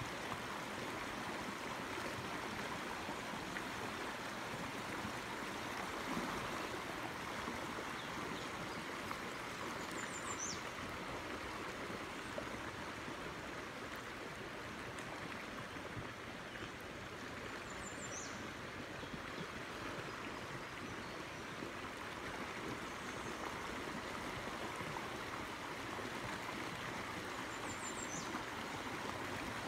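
Steady rush of stream water flowing over rocks, with a short high chirp heard three times, about eight to ten seconds apart.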